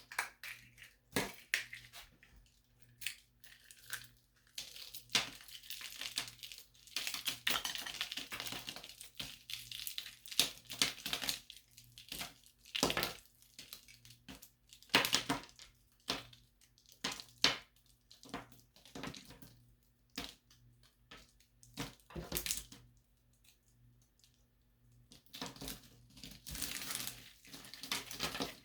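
Small plaster tiles being crushed and crumbled close to the microphone: irregular crunches, cracks and crackling, which thin out to a few soft sounds for several seconds about two-thirds of the way through and then pick up again.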